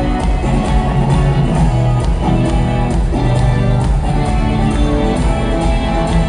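Rock band playing live: guitars over a steady drum beat.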